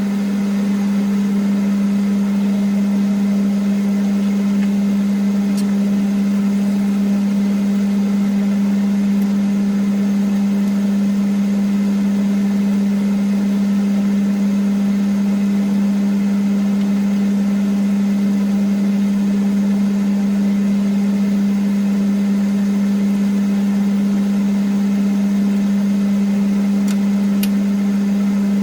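Kitchen range hood extractor fan running, a steady low hum with a strong single tone.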